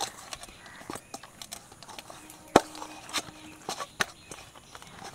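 Maida dough being kneaded again by hand after resting: irregular soft knocks and slaps of the dough against its bowl or board, with one sharper knock about two and a half seconds in.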